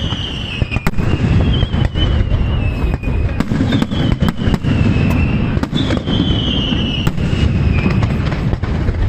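Fireworks display going off continuously: a dense low rumble of bursts, many sharp cracks, and repeated high whistles that slide slightly down in pitch, each about a second long.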